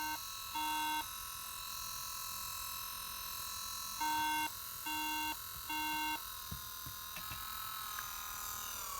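MacBook Air giving electronic beeps at power-on, each about half a second long: one near the start, then a group of three about a second apart from about four seconds in, over a steady high-pitched whine. Three-beep groups repeating like this are the pattern Macs give for a memory (RAM) fault, and the machine will not start.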